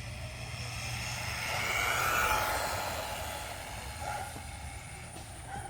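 Small RC truck's electric motor whining at high speed with tyre noise, growing louder about two seconds in and then fading as it passes.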